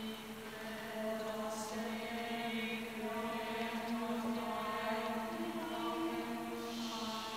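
Mixed choir singing long sustained notes over a steady held low note, with further voices entering one after another so that the chord builds up. A short hiss comes near the end.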